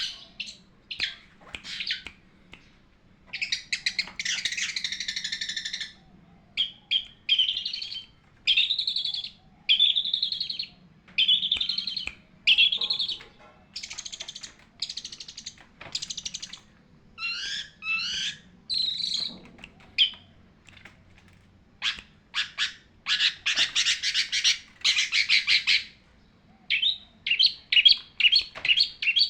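Long-tailed shrike singing a varied song of separate phrases: scratchy rasping notes, bent whistled notes and rapid chattering trills, each phrase lasting about one to two seconds with short pauses between.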